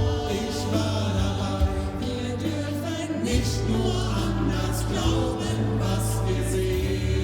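Choir singing, many voices holding sustained notes together.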